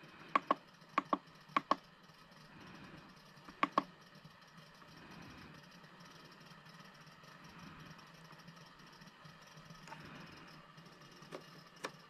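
Short clicks from a FrSky Taranis X9E radio transmitter's scroll wheel and menu buttons as its menus are worked, mostly in quick pairs: several in the first four seconds, then one more near the end.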